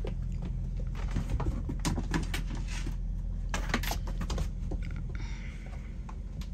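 Scattered taps, knocks and rattles of a young caracal at play: paws scrabbling on a vinyl floor and teeth and claws on a plastic pet carrier's door. The sound runs over a steady low hum.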